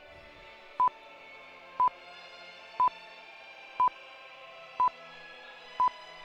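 Countdown timer beeps: a short, high, single-pitch pip once a second, six times, over a quiet ambient music bed.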